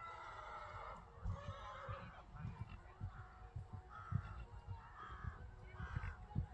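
A bird honks repeatedly. The first call is long and the rest are shorter, coming every half second to second. Low, irregular thumps and rumble run underneath.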